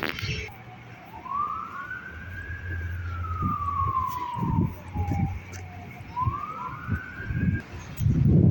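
Emergency vehicle siren wailing: one slow rise and fall in pitch, then rising again, over a low steady rumble. Wind buffets the microphone near the end.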